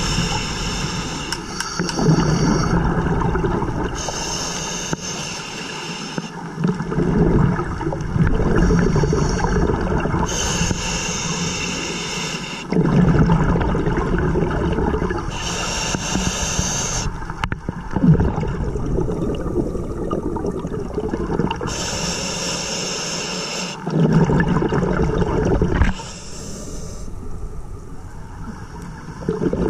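Scuba diver breathing through a regulator underwater. Short high hissing inhalations alternate with louder low bubbling rushes of exhaled air, about one breath every five to six seconds.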